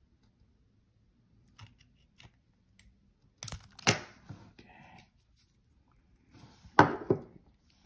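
Steel pliers clicking and scraping on the metal contact tab and end of a cylindrical battery cell: a few faint ticks, then a louder clatter about three and a half seconds in and again near the end.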